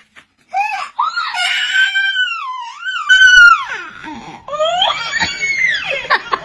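A baby crying and wailing in high-pitched, rising and falling cries, with a short break partway through before breaking into sobbing cries again.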